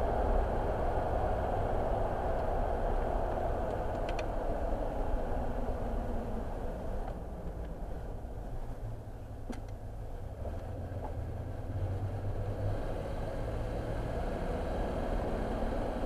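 Car driving, heard from inside the cabin: steady engine and road noise, easing off somewhat in the middle and building again toward the end.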